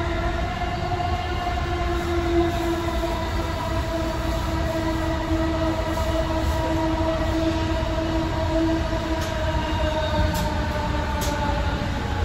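An AirTrain JFK car's linear-induction motor whines over a steady low rumble of the wheels on the guideway. The whine's pitch falls gently and fades out as the train slows into the station, and a few faint clicks come near the end.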